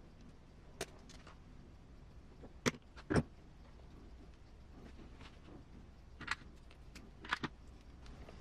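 Scattered small clicks and knocks of RC transmission parts being handled and fitted together by hand, with two louder knocks about three seconds in.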